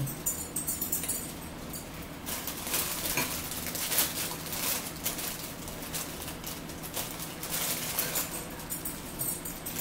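Clear plastic cracker sleeve crinkling in irregular rustles as a hand rummages in it and pulls crackers out, starting about two seconds in.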